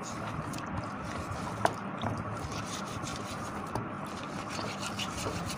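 Wire pot scourer scraping loosened rust off a Moulinex blender motor's metal body under water, a continuous scratchy rubbing with small splashes. A single sharp knock about one and a half seconds in.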